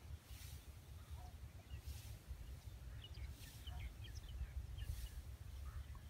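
Wind rumbling on the microphone across an open field, with a faint high hiss coming back about every second and a half. A few short, high bird chirps sound about halfway through.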